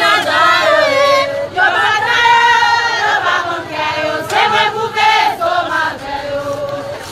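A crowd of many voices singing together in chorus, holding long wavering notes.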